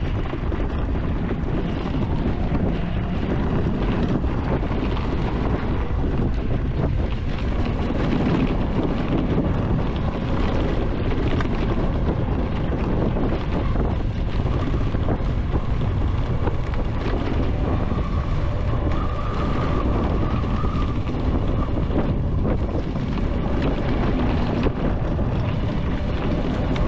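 Steady low rumble of wind buffeting the microphone while riding an electric ATV, with no engine note.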